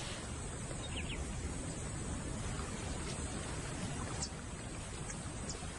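Steady outdoor wild ambience with a few faint, short bird chirps, about a second in and again near the end.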